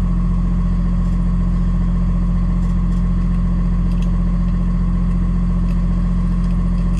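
Box truck's engine idling steadily while it warms up, heard from inside the cab.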